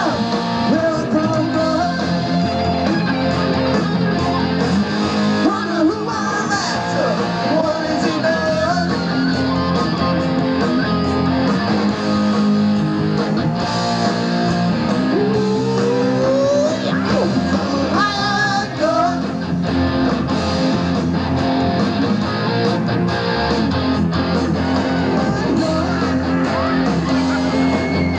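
Live rock band playing with electric guitars and drums, the lead guitar bending notes, with a long upward slide about fifteen seconds in.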